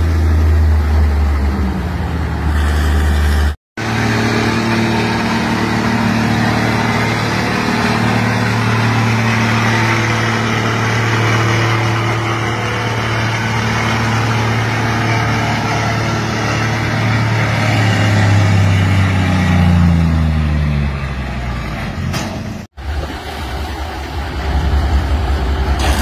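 Old semi truck's engine working hard at a truck pull, holding a steady note for about nineteen seconds that creeps up, then rises and falls as the run ends. Short clips of a truck engine running at low speed come before and after, split by abrupt cuts.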